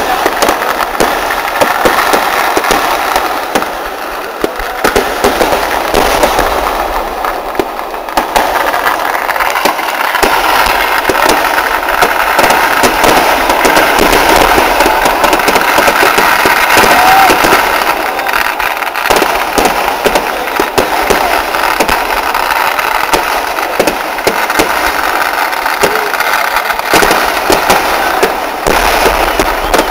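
Dense barrage of fireworks: black-powder crackers and shells going off in a rapid, unbroken string of loud bangs, heaviest about halfway through.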